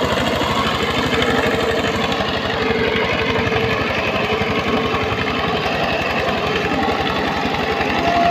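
Single-cylinder diesel engine of a power tiller running hard with a fast, even firing beat, pulling a heavily loaded trolley through mud.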